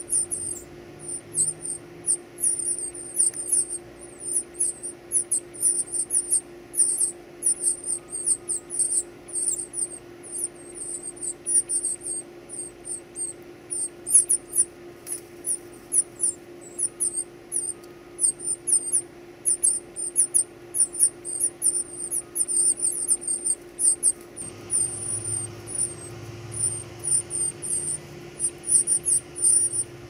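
Northern cardinal nestlings begging while a parent feeds them: a rapid, constant run of thin, very high squeaky calls, several a second.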